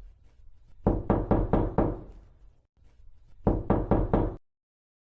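Knocking on a wooden door: two rounds of quick knocks, four or five each, about a second in and again about three and a half seconds in, ending abruptly in dead silence.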